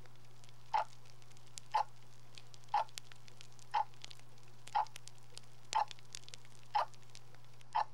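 A soft tick about once a second, as regular as a clock, over a steady low hum and faint scattered crackle.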